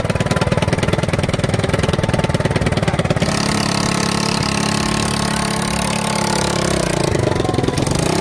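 Small quad bike (ATV) engine idling with a fast, even putter. About three seconds in it changes to a steadier, higher running sound as the bike is driven.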